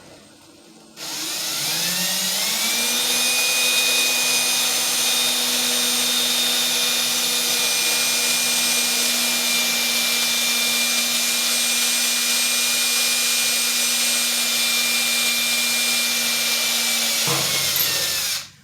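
Power drill with a long 12-inch number 30 bit drilling a rivet hole. It spins up about a second in, runs steadily at a whine with a hiss for about sixteen seconds, then winds down and stops near the end.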